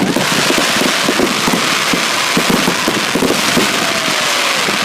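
Fireworks going off in a dense volley: a continuous loud hiss with rapid crackling pops throughout.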